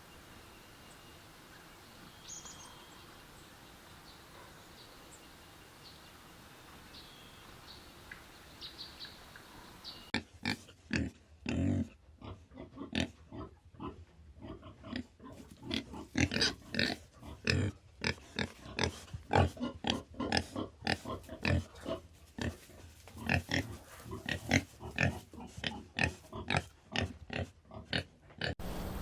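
An animal vocalizing in a rapid, irregular series of short, loud grunt-like sounds, several a second, starting about ten seconds in. Before that, only faint background with a few high chirps.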